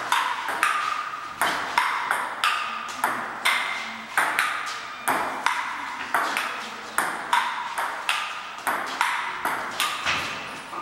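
Table tennis rally: the ball clicking back and forth off paddles and the wooden table, a sharp knock about two or three times a second, each ringing briefly and echoing off the hard walls and floor.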